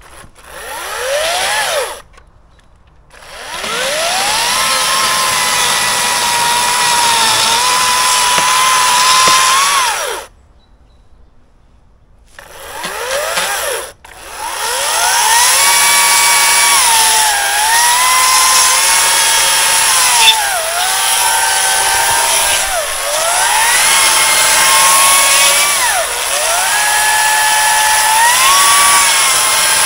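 Cordless electric chainsaw cutting wood: the motor spins up from rest, runs with its pitch dipping and recovering as the chain bites, and stops abruptly, with short silences between runs. It starts briefly about a second in, runs steadily until about ten seconds in, gives a short burst after that, then runs with repeated dips in pitch through the second half.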